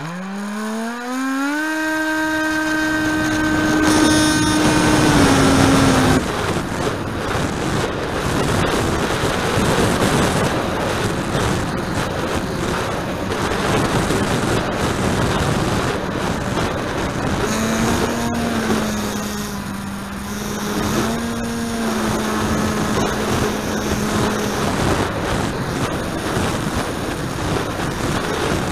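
Model plane's electric motor spinning up with a steeply rising whine, held at a steady high pitch, then throttled back about six seconds in. After that, wind rushing over the onboard camera's microphone fills the sound. The motor's whine comes back lower from roughly 17 to 25 seconds, rising briefly twice.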